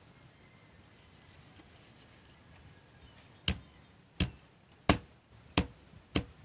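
A heavy blade chopping on a wooden board: five sharp, evenly spaced strokes about 0.7 s apart, starting a few seconds in after a quiet stretch.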